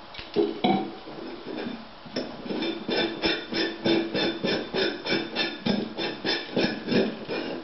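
A metal pump cap being screwed onto a stainless-steel fuel bottle. A couple of knocks as it is set on, then a rhythmic run of short scraping clicks from the threads, about three to four a second, as it is twisted down.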